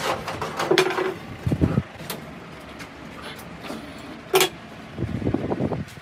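Scattered metal clinks and knocks of hand tools against heavy metal parts: two sharp strikes, about a second in and near the end, ring briefly, with low thuds between them.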